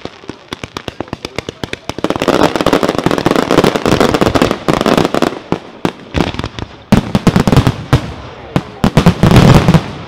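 Fireworks display: a rapid string of launch shots and bangs, becoming a dense, loud crackling volley of comets and bursts about two seconds in, with heavier bangs near the seventh and ninth seconds.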